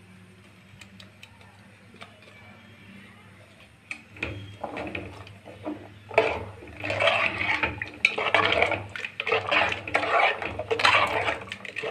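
A metal spoon scraping thick ground coconut paste into a pressure cooker pot of chickpeas and water, clinking against the metal pot and stirring the liquid. Faint at first, it grows louder and busier from about four seconds in, with many sharp clinks.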